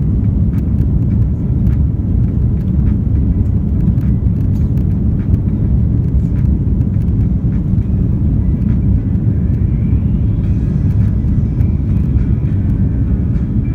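Jet airliner cabin noise during the climb after takeoff: the engines and rushing air make a loud, steady, deep rumble heard from a window seat.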